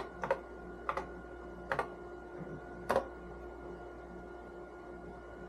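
Keys being struck one at a time on an Apple Lisa 2/10 keyboard, four separate clicks in the first three seconds, then only a steady machine hum.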